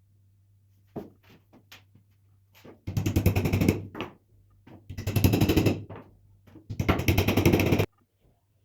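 Power tool run in three bursts of about a second each, each a fast hammering rattle, after a few light knocks about a second in.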